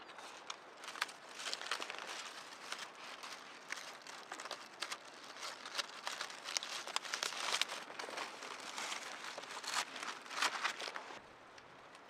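Dry reed stalks rustling and crackling as they are handled and pushed into place on a wall: a dense run of small cracks and rustles that drops away near the end.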